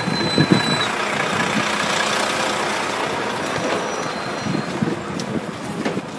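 Livestock transport truck running at close range, with a steady hiss that swells for several seconds and then fades; footsteps on the road in the first moments.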